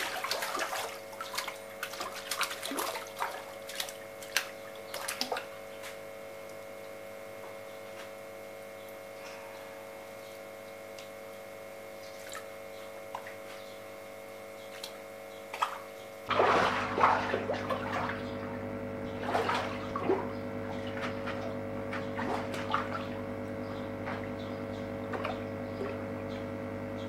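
A hooked fish thrashing and splashing at the surface of a small pond as it is played on a rod. The splashes are busiest in the first few seconds, ease off, then pick up again about 16 seconds in, over a steady background hum.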